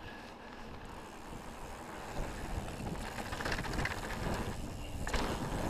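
Wind buffeting the camera microphone while a mountain bike's tyres roll over a dirt and gravel trail on a descent, with a short burst of noise about five seconds in.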